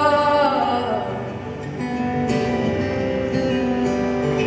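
Live acoustic band music: voices hold and fade out the end of a sung line over about the first second, then acoustic guitar plays ringing, sustained chords.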